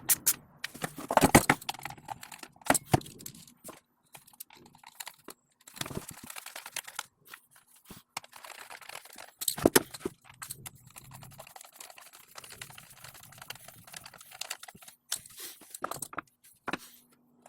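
Irregular clicks, knocks and scrapes of small chainsaw parts and hand tools being handled during reassembly, loudest about a second in and again near ten seconds.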